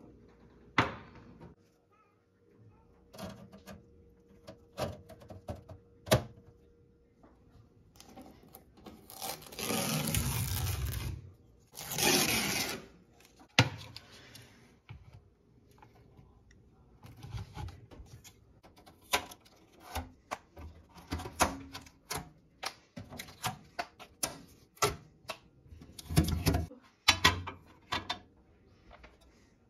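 Scattered knocks and clicks from hands handling a newly installed over-the-range microwave and its parts, plugging in its power cord and fitting the turntable roller ring. Two longer stretches of rushing noise come about ten and twelve seconds in.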